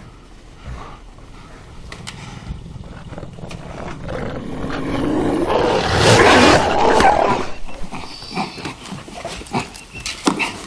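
A German Shepherd snarling and growling as it turns infected, building to a loud, thrashing peak about six to seven seconds in, then breaking into shorter snarls and scuffling sounds.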